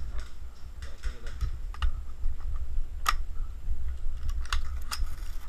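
Scattered sharp clicks and snaps of movement through dry leaf litter and gear handling, the strongest about three seconds in and a few more near the end, over a low rumble of handling noise on a body-worn action camera.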